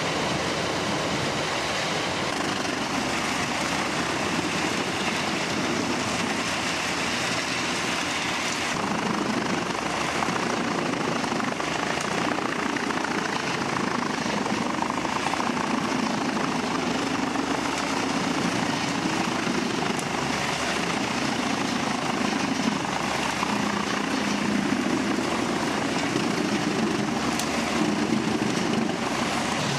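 Heavy wood-chipping and grinding machinery running steadily, a dense mechanical din. Its character shifts about nine seconds in.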